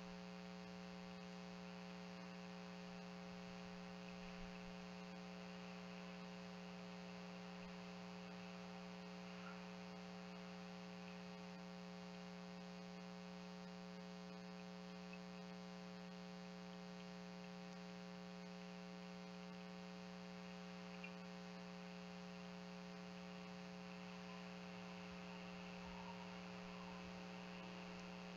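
Faint, steady electrical hum with evenly spaced overtones over a light hiss, with a few tiny faint ticks.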